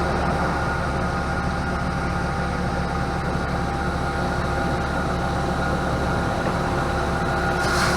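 A heavy farm engine running at a steady speed: an even, low hum with a few steady tones above it. A hiss comes in near the end.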